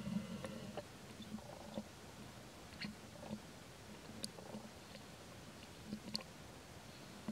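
Long-tailed macaque chewing food, most likely mango, with scattered soft clicks. A brief pitched squeak sounds in the first second.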